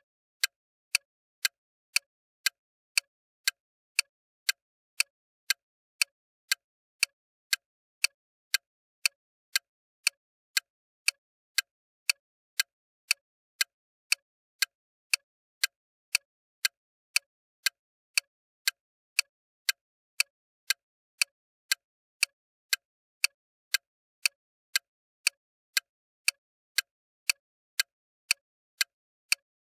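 Bomb-timer sound effect: sharp, even clicks at a steady two a second, with silence between them.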